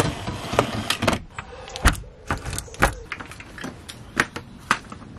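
A run of sharp clicks, knocks and rattles from packing up a touring caravan: a window roller blind being slid along its frame, and a folding reclining chair being handled.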